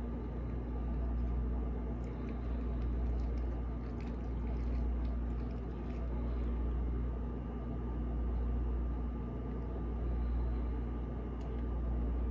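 A steady low mechanical hum with a fainter steady whine above it, swelling and easing slightly about every two seconds. A few faint clicks come through in the first half.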